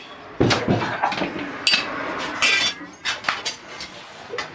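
Several sharp clinks and knocks of metal kitchen utensils and dishes, some ringing briefly.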